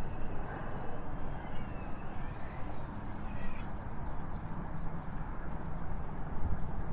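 Red-tailed hawk giving a faint, falling scream about two to three seconds in, the alarm call of a hawk defending its nest. A steady low rumble of wind on the microphone runs under it and is the loudest sound.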